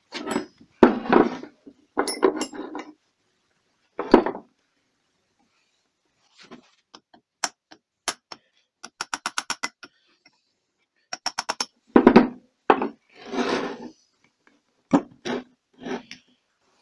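Metal knocks and clinks from a GAZ-66 power-steering pump being taken apart by hand, as its drive shaft and bearing are worked out of the housing. There are several heavier knocks, and two quick runs of light clicks a little past the middle.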